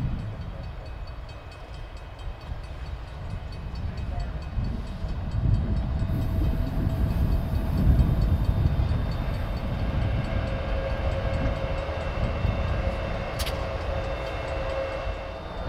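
CN diesel locomotives running light, engines running as they approach slowly and pass close, growing louder to a peak about halfway through. Steady whining tones join the engine sound from about six seconds in, and there is one brief sharp tick near the end.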